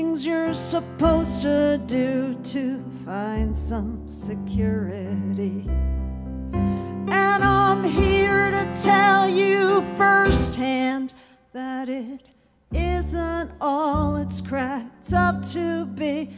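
A woman singing a slow, tender ballad while accompanying herself on piano, with a brief near-silent break about two-thirds of the way through before voice and piano resume.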